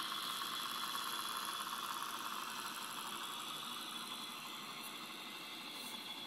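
Märklin model electric locomotive running along the layout's track, a steady mechanical whir and rattle with a thin whine, fading slowly as it moves away.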